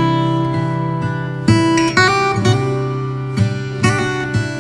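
Background music on acoustic guitar: sustained chords with fresh notes plucked every half second or so.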